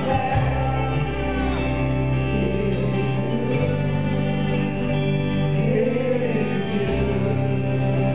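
Live gospel worship music: a praise team singing with held, sustained chords from a band.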